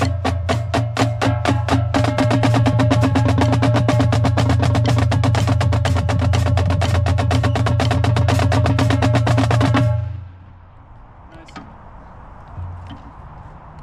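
Marching drumline of snare drums, quad tenors and bass drums playing a warm-up together: even, rapid strokes at first, then a dense, sustained roll that the whole line cuts off at once about ten seconds in. After the cutoff only a few faint clicks are heard.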